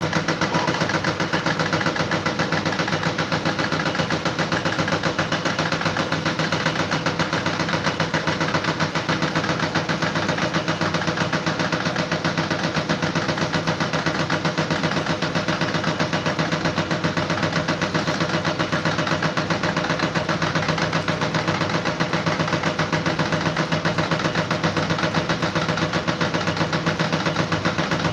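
An engine running steadily at a constant speed, with a fast, even pulsing throughout.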